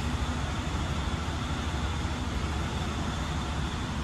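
Steady low rumble with a hiss over it, continuous and unchanging.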